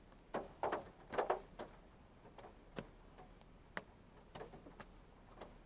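Rain drops tapping irregularly on the parked car's roof and windshield, heard from inside the car: a quick cluster of taps in the first second and a half, then single drips every second or so.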